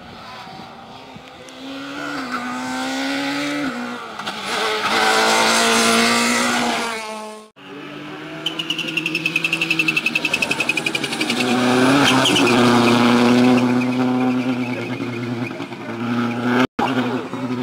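Rally car engines at full throttle on a gravel stage, heard in short cut-together clips, the engine note rising and falling through gear changes. In the middle clip a blue Subaru Impreza WRC powers through a bend and away. A high falling whine sits over its engine at first, then the engine runs loudest as it accelerates off.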